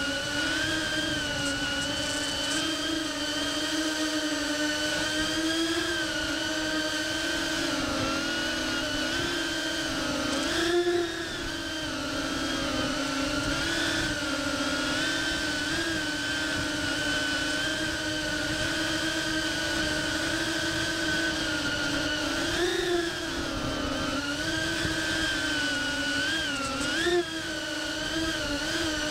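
Ducted cinewhoop FPV drone's motors and propellers whining steadily, heard from the camera on board, the pitch wavering with throttle. Brief throttle punches make the whine rise sharply, about a third of the way in, again later on, and once more near the end.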